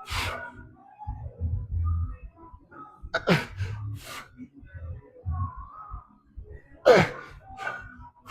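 A man's sharp, forceful exhales with a short falling grunt, three times, one with each rep of a lat exercise.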